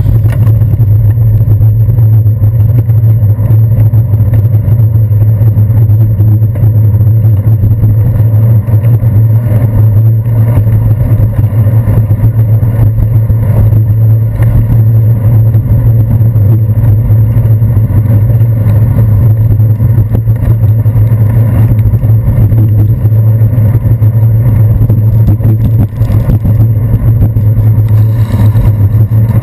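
Loud, steady low rumble of wind buffeting and road vibration picked up by a handlebar-mounted GoPro Hero 2 in its housing while cycling.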